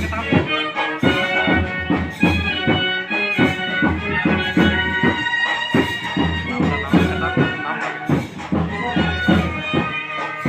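Loud music with a fast, steady drum beat under a held, reedy melody.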